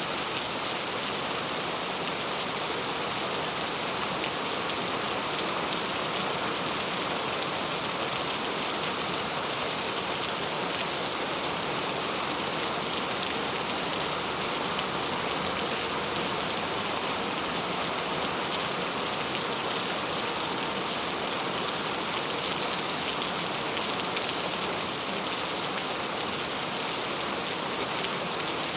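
Steady rainfall: a dense, even hiss of rain falling on surfaces, with fine patter of individual drops.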